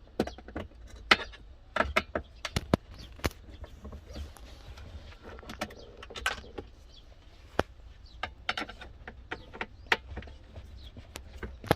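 Irregular clicks, taps and knocks of tools and plastic parts being handled during disassembly of a car's cool box, over a steady low hum.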